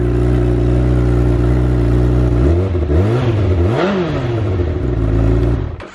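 2017 Honda CBR1000RR's inline-four engine on its stock exhaust, idling steadily. About halfway through it is blipped up and down a couple of times before settling back to idle. The sound cuts off suddenly near the end.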